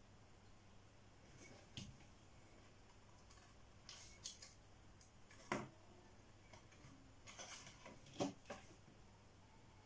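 Faint scattered clicks, taps and paper rustles as small wooden letter tiles and cardstock are handled and pressed down; the clearest tap comes about halfway through, with a small cluster near the end.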